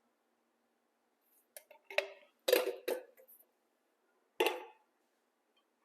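Several short clanks and knocks of a metal can and kitchenware against a dish as canned peaches are tipped out, the loudest about two and a half seconds in.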